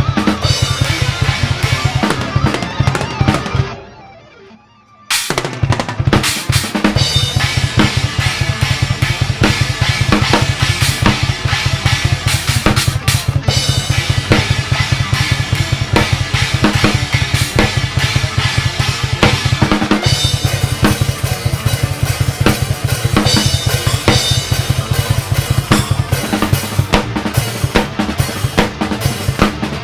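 Acoustic drum kit with Paiste cymbals played hard: snare, toms and crashes, then a brief lull about four seconds in. After that it comes back in with fast, steady bass drum strokes under snare and cymbal hits.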